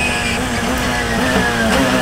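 Radical SR3 RSX's 1340 cc four-cylinder engine falling in pitch under hard braking, with short throttle blips on the quick downshifts from sixth to second gear.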